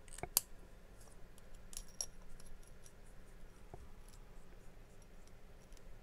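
Faint, light clicks and taps of a fountain pen being handled on a desk, with one sharper click about a third of a second in and a few scattered ticks after it.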